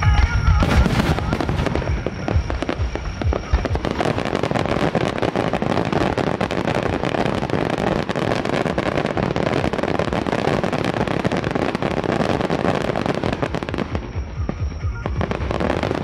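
A fireworks finale barrage: deep booms of shells bursting in the first couple of seconds, then from about four seconds in a dense, continuous crackle of many small bursts, easing briefly near the end before another volley.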